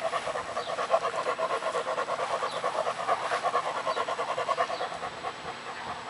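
Young German Shepherd panting close by with its tongue out, in quick, even breaths that ease off near the end.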